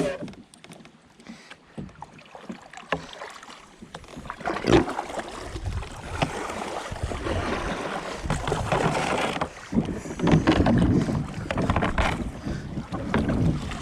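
Kayak on moving river water: rushing, splashing water against the hull that builds about four seconds in, with a few sharp knocks.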